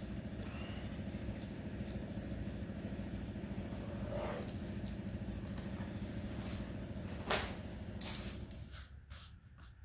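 Steady drone of a running machine with a low hum, fading out about nine seconds in. A few sharp clicks come just before it stops.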